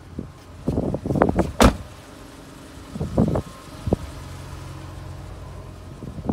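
Handling knocks and rustling around an SUV's open doors and interior, with one sharp knock about a second and a half in. From about four seconds on there is a low steady hum.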